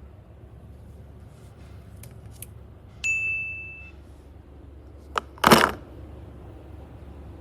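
A single bright ding, a clear ringing tone about three seconds in that fades over about a second, then a short, loud rustling burst a couple of seconds later.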